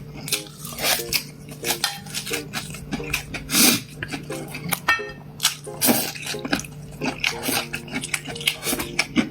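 Tableware clatter: a run of irregular clicks and clinks of utensils against dishes, with faint background music underneath.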